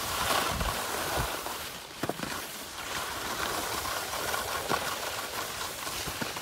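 Steady hiss of skis gliding and scraping over groomed snow, with two short clicks, one about two seconds in and another near the five-second mark.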